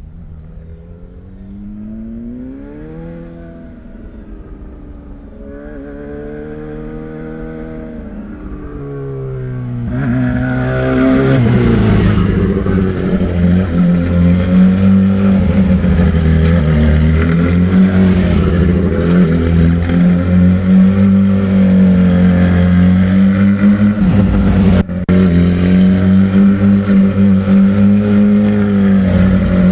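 Suzuki GSX-R750's inline-four running through an Akrapovič Megaphone exhaust as the bike is ridden, the revs rising and falling. It is fainter at first and much louder from about ten seconds in, staying loud to the end.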